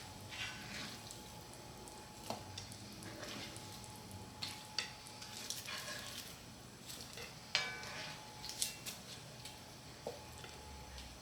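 Faint, scattered clinks and knocks of cookware being handled on the counter, a few with a short metallic ring, over a faint steady hum.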